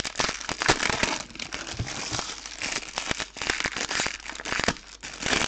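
Foil wrappers of 2020 Donruss Optic trading card packs crinkling and crackling as they are handled in the hands, with many sharp crackles throughout.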